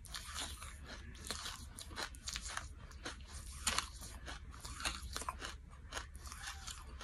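Close-miked chewing of charcoal chunks: irregular sharp crunches one after another, the loudest about two thirds of the way through, over a steady low hum.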